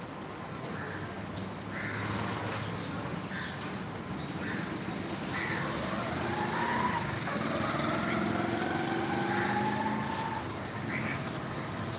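Street traffic noise, with a motor vehicle's engine accelerating in the middle, its pitch rising steadily over about four seconds.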